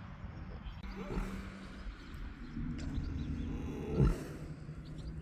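Horse lying down and snoring: a low, drawn-out rumbling breath, with a louder short breath about four seconds in.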